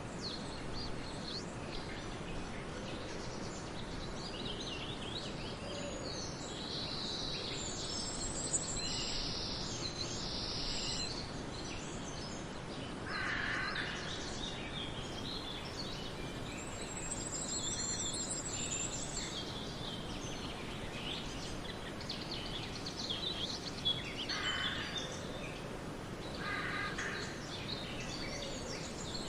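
Several birds chirping and calling on and off over a steady background hiss. High twittering chirps come in clusters, and a few lower, harsher calls stand out about halfway through and again near the end.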